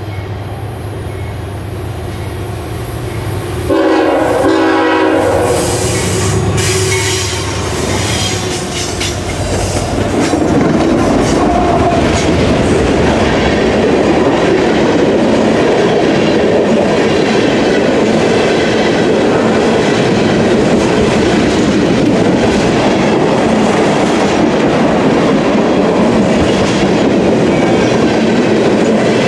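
Diesel freight locomotives, a CSX CW40-8 leading two CN units, running as they approach; a loud horn chord sounds about four seconds in. From about ten seconds in, the steady rumble and clatter of empty tank cars rolling past on the rails follows.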